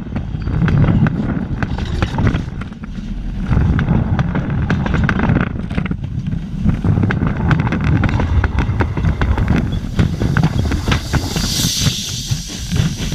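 Railroad cars rolling over the rail right beside a track-level microphone: a heavy low rumble with steady clicking and knocking of steel wheels on the rail and joints. A brief hiss comes near the end as the train clears.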